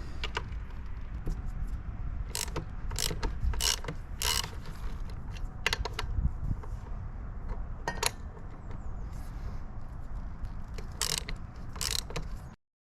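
Ratchet wrench loosening bolts on a motorcycle's front end, with irregular sharp clicks over a low rumble. The sound cuts off suddenly near the end.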